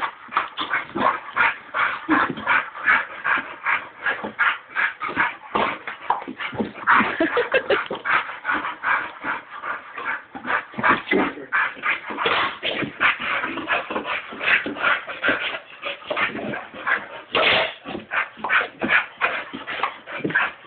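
Two dogs whining and yipping excitedly in quick, nearly continuous bursts as they jump up again and again for something held overhead.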